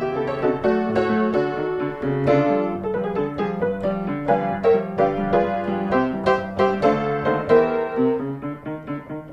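Piano music: a lively tune of quick notes over a steady bass line, growing a little quieter near the end.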